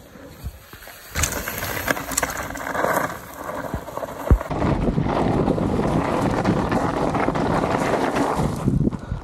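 Mountain bike being ridden fast down a dirt trail: the tyres rush over the dirt and wind hits the camera microphone, with rattles and clicks from the bike. There is a sharp knock a little over four seconds in, after which the tyre and wind noise runs steady and louder until just before the end.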